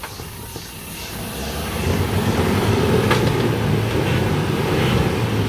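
Troller 4x4's engine revving up under load as it crawls backwards over a deep rocky rut, building up about a second and a half in and then held steady. A single sharp click about three seconds in.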